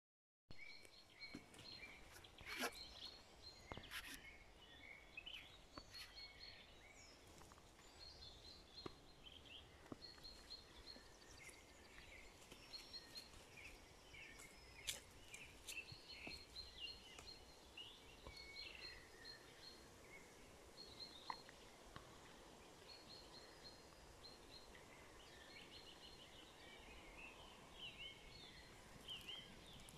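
Faint birdsong in woodland: many short chirps and twittering calls from several birds over a quiet hiss, with a few sharp clicks, the loudest early on and about halfway through.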